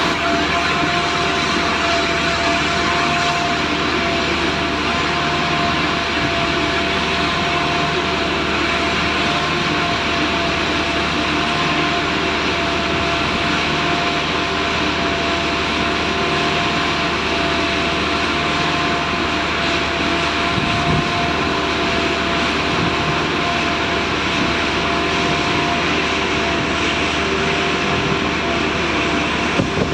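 Train running steadily: a constant loud rumbling noise with a steady whine held on the same pitch throughout.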